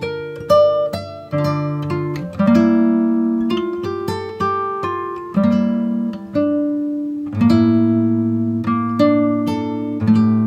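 Background music on a plucked guitar: picked notes, each ringing and fading, over changing chords at a steady easy pace.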